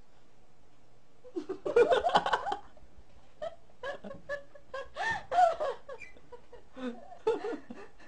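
People laughing and giggling in short bursts, starting about a second and a half in.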